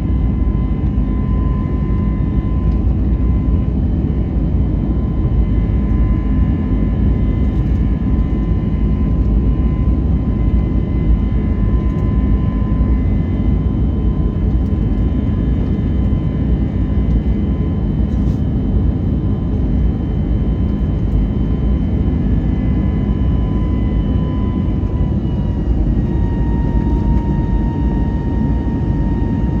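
Airbus A321neo's Pratt & Whitney PW1133G geared turbofan engines heard inside the cabin: a loud, steady rush with several thin whining tones over it. The whine steps down slightly in pitch about 25 seconds in.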